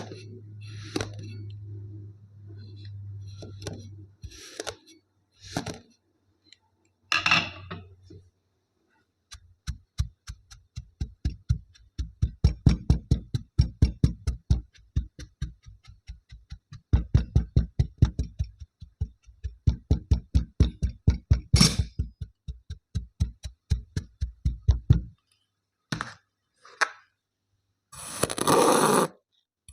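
Kinetic sand being chopped with a knife: a fast, even run of short knocks, several a second, with one brief pause, as the blade cuts through the sand onto the tray. A short scraping rush follows near the end.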